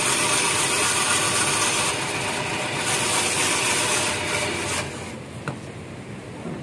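Ice-shaving machine shaving a block of ice into a bowl: a steady, loud, rasping hiss that stops about five seconds in, followed by a single short click.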